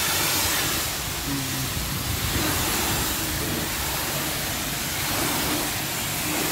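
Pressure-washer lance spraying a jet of water onto a car's bodywork, a steady hissing spray.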